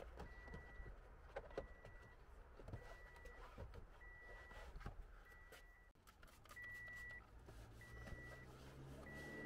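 A car's warning chime beeping faintly with the door open: a short, high beep repeating evenly, about one every second and a quarter. Soft rubbing and small clicks from a microfiber cloth wiping the door panel sit under it.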